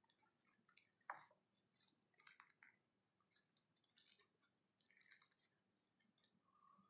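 Faint crinkling and crackling of plastic cling film being peeled back off rolled-out pastry dough, in several separate rustles, the sharpest about a second in.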